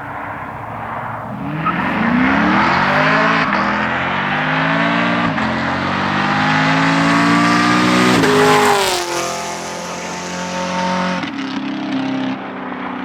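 A car engine accelerating hard, its pitch climbing and dropping back at about three upshifts, then falling sharply as it passes and running on at a lower, steadier pitch before fading.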